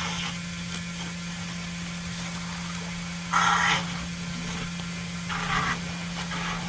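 Septic pump truck's vacuum pump running with a steady low hum as it sucks out the tank, with two short rushing bursts, the louder one about three seconds in.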